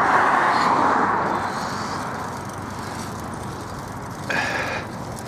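Wind and tyre rush of a bicycle rolling along an asphalt path, swelling in the first second and then easing, with a short higher squeak about four seconds in.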